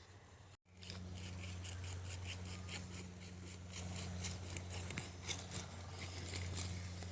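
Quick repeated scraping or rubbing strokes, several a second, over a steady low hum, starting just after a brief cut to silence near the start.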